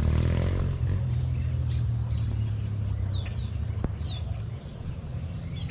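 A few short, high bird chirps, each falling in pitch, three of them close together about three to four seconds in, over a steady low rumble.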